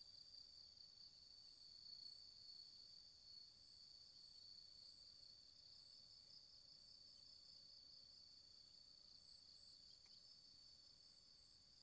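Faint insects chirring steadily in a high, slightly pulsing trill, with short higher chirps recurring every second or two, often in pairs.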